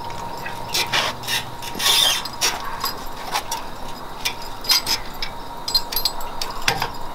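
Metal-on-metal clicks and clinks of a Blue Ox tow bar's arms being spread out and handled into place against the baseplate brackets. The clicks come irregularly, with a louder rattling cluster about two seconds in.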